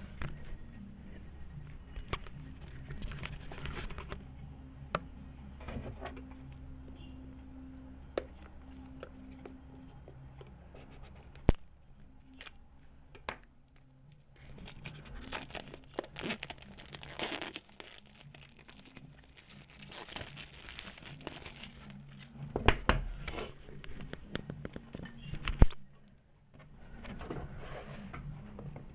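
Plastic wrapping being picked at, torn and crinkled off a small iPod Touch box, with sharp clicks and taps of fingers on the box now and then; the crinkling is heaviest in the middle stretch.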